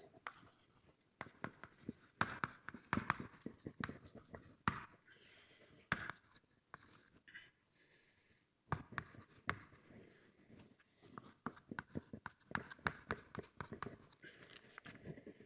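Writing on a board by hand: a run of short, sharp taps and scratchy strokes, faint, with a quieter pause of about two seconds just past the middle.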